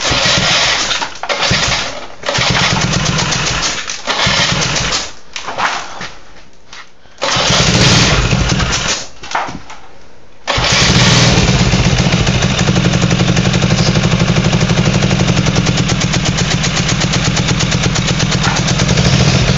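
Small single-cylinder mini bike engine being started. It fires in several short bursts that die away again, then about halfway through it catches and runs steadily with a fast, even pulse. The engine is hard to start.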